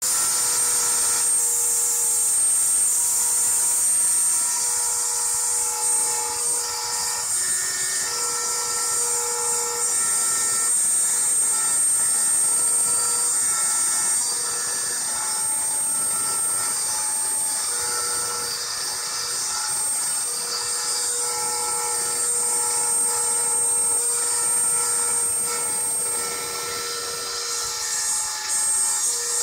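Dremel 3000 rotary tool running at high speed as the spindle of a MendelMax RepRap, its bit cutting a 1 mm-deep pass into birch plywood, with a steady high whine. Beneath it the machine's stepper motors hum at pitches that change every second or few seconds as the carriage moves along the toolpath.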